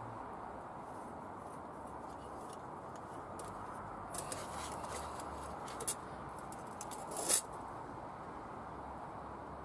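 A metal hurricane lantern being handled: a few small clicks and clinks from about four seconds in, then a short, louder scrape a little after seven seconds, over a steady low hiss.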